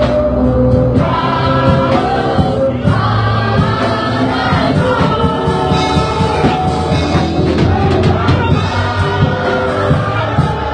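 A congregation singing a gospel worship song with live accompaniment: many voices over a steady bass line and a driving drum beat.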